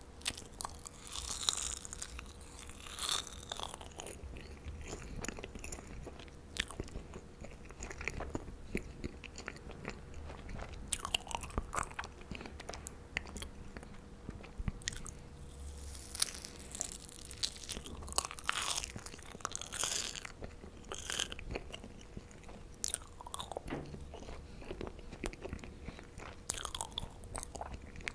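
A person biting and chewing marshmallows, with irregular mouth clicks and smacks throughout.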